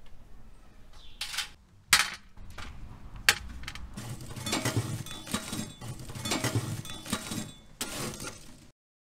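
A metal poker stirring and breaking up ash-covered charcoal embers in a steel mangal (brazier): coals clinking and crunching against each other and the steel box. There are two sharp knocks in the first few seconds, then a run of many small scrapes and clinks. The sound cuts off abruptly near the end.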